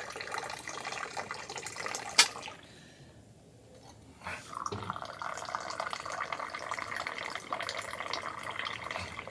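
Mint tea poured in a thin stream from a raised metal teapot into small tea glasses, splashing steadily as the glasses fill; the high pour is to raise foam on the tea. The pouring stops with a sharp click about two seconds in, pauses for about a second and a half, and then resumes.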